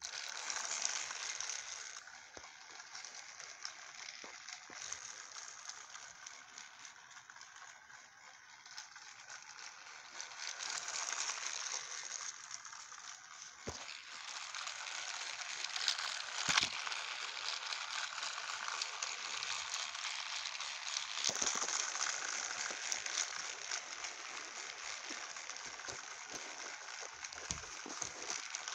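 Battery-powered Real Steam Percy toy engine switched on: a steady rattling, crackling hiss that starts suddenly, with a few knocks of handling along the way.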